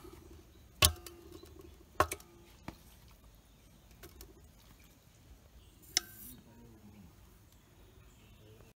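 Raw chicken pieces being dropped into a metal cooking pot, with a few sharp knocks of meat and hand against the pot: about a second in, about two seconds in, and once near six seconds, that one with a brief metallic ring.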